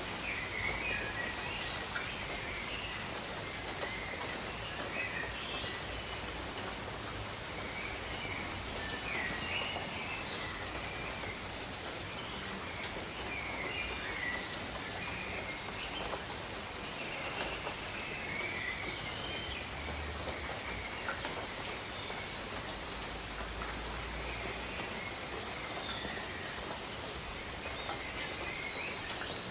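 Steady rain falling on garden foliage, with birds chirping on and off throughout.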